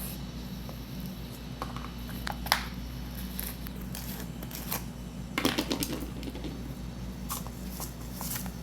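Kitchen handling sounds as sugar is scooped and poured into a cup: scattered light clicks and taps of a container and utensils, with a brief dense rattle about five and a half seconds in, over a steady low hum.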